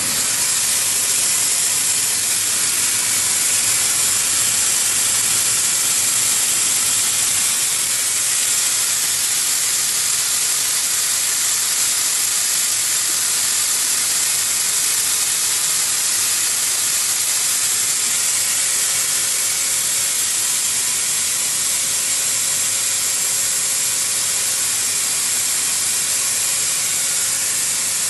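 A loud, steady hiss that switches on abruptly and holds unchanged throughout, with a faint high whistle running through it.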